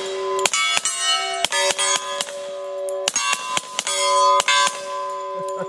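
FNP-45 Tactical .45 ACP pistol fired rapidly through a SilencerCo Osprey 45 suppressor: a quick string of suppressed shots with a short pause about halfway. Struck steel targets clang and keep ringing between the shots.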